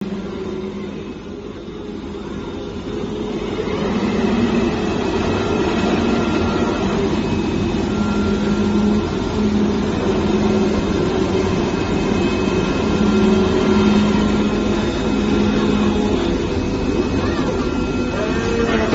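Steady machine running noise with a low hum that comes and goes in stretches and a few faint high whines; it builds up over the first few seconds, then holds steady.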